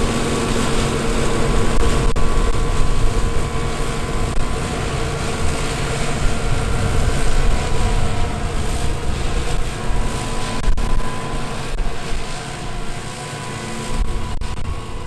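John Deere 9450 combine running steadily while harvesting wheat: a loud, even machine noise with a constant hum and a few faint clicks.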